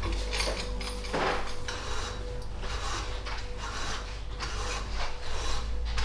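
Hand-tool work on a bicycle part: a series of rasping, scraping strokes, roughly one every half to one second, over a steady low hum.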